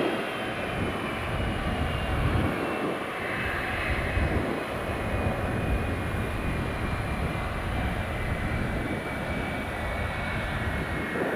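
Airliner's jet engines rumbling steadily, with a high whine that slowly falls in pitch.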